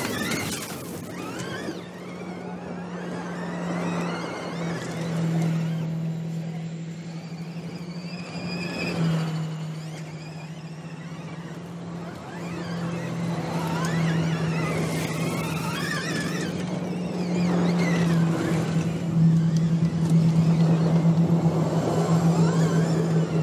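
Audi RS Q e-tron electric rally car driving off-road: a steady low hum under a whine that rises and falls several times, getting louder in the last few seconds.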